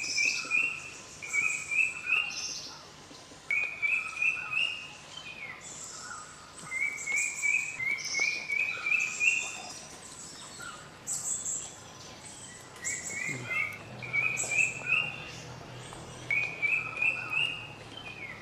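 Birds singing: one bird repeats a short phrase of quick notes that step upward in pitch, about once every two seconds, while other birds chirp higher and more briefly.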